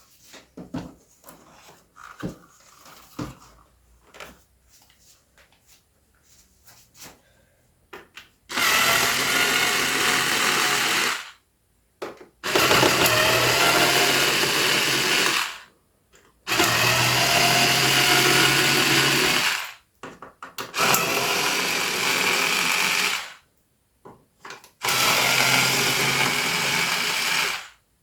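Handling clicks, then an electric screwdriver running in five bursts of two to three seconds each with short pauses between, backing screws out of the keyboard's case.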